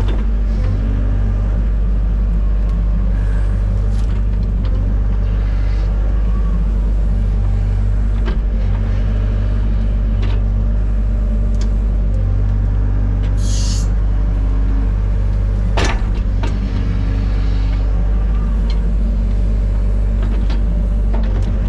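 Excavator's diesel engine running steadily under work, with scattered knocks, a short hiss about 13 seconds in and a sharp crack about 16 seconds in.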